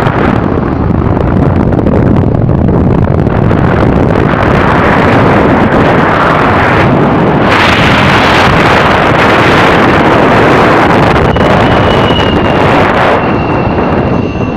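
Loud wind buffeting the microphone over the running noise of a moving vehicle. A faint, thin, steady high tone comes in about eleven seconds in.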